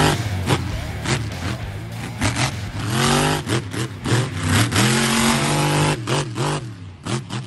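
Electric RC monster truck (Losi LMT) motor whining up and down as it revs, with tyres scrabbling on dirt and several knocks and clatters as the truck hits ramps and lands.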